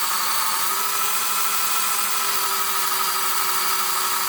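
Electric drill running steadily at speed, a constant motor whine over a broad hiss, as it spins a rubber model car tire against a sanding block to grind off its uneven lip and true it.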